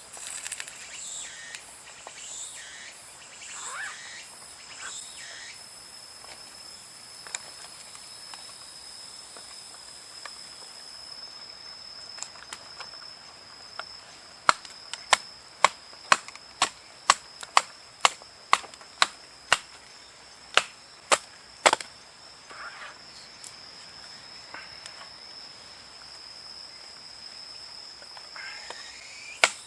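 Insects drone steadily on one high note. About halfway through a run of sharp strikes sets in, roughly two a second for some eight seconds, and a few more start near the end.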